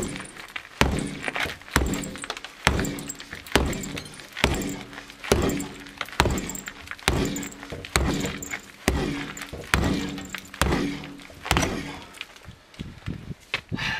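Boker Vox T-Hawk carbon-steel tomahawk chopping into a wooden door: about a dozen heavy thunks, roughly one a second, each followed by a brief hollow ring from the door. The strikes stop near the end.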